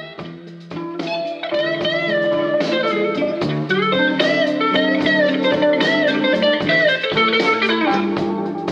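A blues band playing live, fading up over the first second: guitar and a lead line with wavering bent notes over bass and drums.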